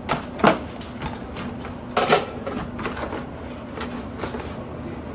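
A cardboard pizza box is closed and handled on a stainless-steel counter: a few sharp taps and knocks, the loudest about half a second and two seconds in, over a steady low hum.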